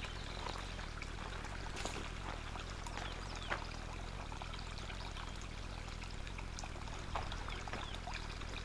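Spring water running steadily, pouring and trickling with small splashes: the spring is flowing well.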